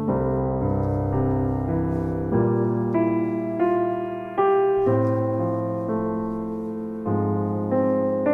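Background piano music: slow chords and notes played one after another.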